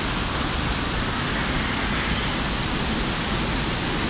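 Cascade d'Angon waterfall falling close by: a steady, even rush of water with no break.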